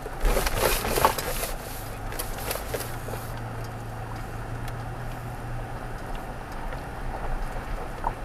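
2016 Toyota Tacoma pickup heard from inside the cab, creeping along a dirt road at walking pace: a steady low engine hum. Over the first three seconds there is also a burst of crackling and crunching, from the tyres on the rough surface or from brush against the body.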